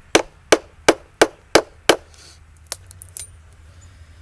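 Mallet striking a chisel to carve a wooden log: six blows in a steady rhythm of about three a second, then a few lighter taps about three seconds in.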